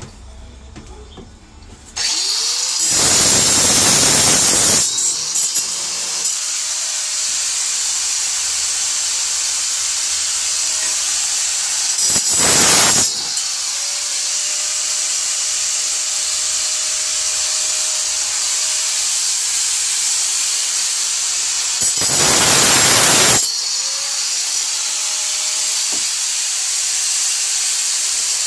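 Angle grinder with a diamond-embedded tile cutoff wheel switching on about two seconds in and running steadily, cutting through the nails that hold a window frame. Three times it grows louder and harsher as the wheel bites into a nail.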